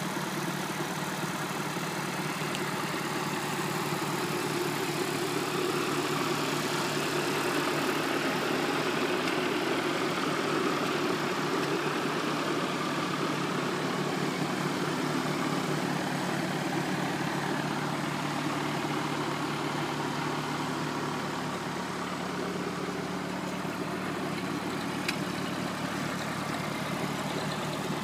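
Ford 8N tractor's four-cylinder flathead engine idling steadily.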